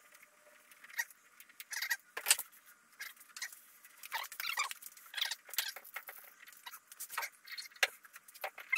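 Irregular light squeaks, scratches and small clicks from hands working parts at a truck door's window frame.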